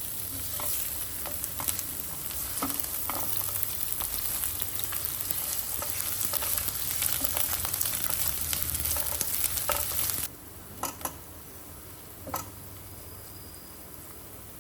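Food sizzling as it fries in hot oil in a pan, with scattered clicks of a utensil stirring it. The sizzling cuts off abruptly about ten seconds in, leaving a quieter background with a couple of knocks.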